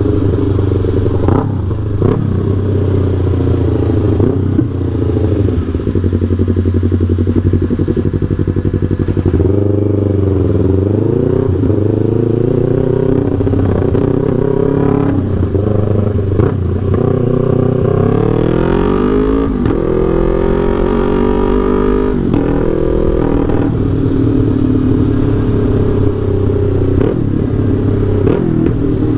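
Yamaha R3's 321 cc parallel-twin engine through a Fullpro aftermarket exhaust, running steadily, with the revs dipping and picking up again about ten seconds in and climbing in a long rise around eighteen to twenty seconds in.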